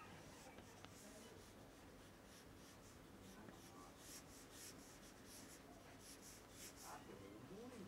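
Faint scratching of a pencil sketching on paper, in short quick strokes. The strokes come thickest from about four seconds in.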